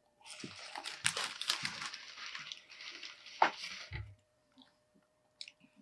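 Paper fast-food packaging (fry bag and carton) rustling and crinkling as it is handled, for about four seconds, ending in a soft thump as it is set down on the table.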